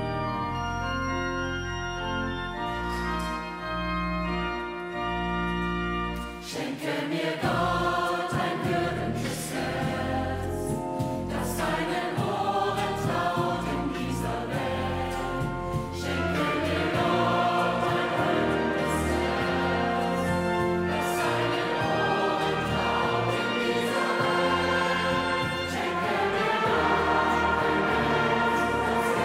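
Pipe organ playing sustained chords, then about six seconds in a choir starts singing with the organ accompanying.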